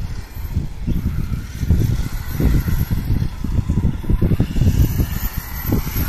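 Wind buffeting the microphone, the loudest sound, over the faint whine of an electric RC car's motor, rising and falling as the car speeds up and slows through the corners.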